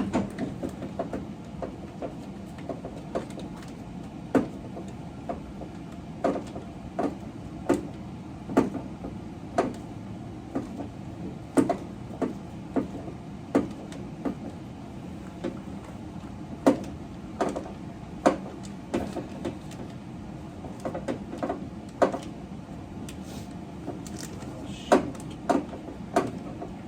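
Hand tool working a 10 mm nut on the side-mirror post inside a car door: a string of sharp metal clicks and knocks, irregular and roughly one every half second to a second, over a steady low hum. The nut appears to be spinning on the post rather than backing off.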